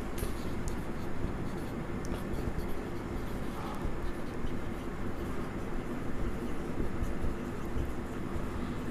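Marker pen writing on a whiteboard: faint scratching strokes over a steady low hum.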